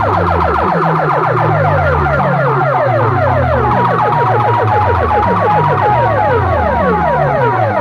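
DJ sound-box rig playing an electronic siren effect at high volume: rapid falling sweeps, several a second, over a heavy stepping bass line. A stepping beep melody joins about four seconds in.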